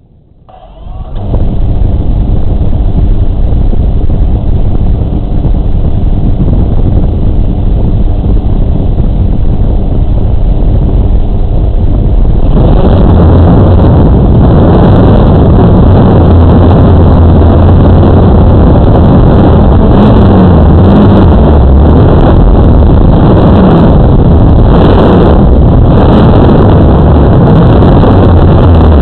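Multirotor drone's electric motors and propellers spinning up about a second in, close to the mic, a loud steady hum with several pitches. From about twelve seconds in it turns louder and rougher as the drone lifts off and climbs.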